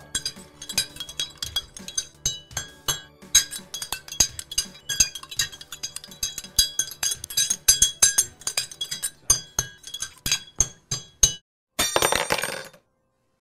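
A metal spoon stirring coffee in a ceramic mug, clinking rapidly and over and over against the sides, about four or five clinks a second. The clinking stops near the end and a brief rush of noise follows.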